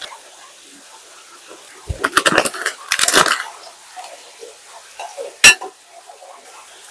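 Kitchen dishes and metal utensils clattering: two quick runs of clinks and knocks about two and three seconds in, then a single sharp clink later on.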